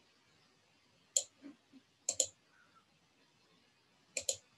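Computer mouse button clicks: a single click about a second in, then two quick pairs of clicks, one about two seconds in and one near the end.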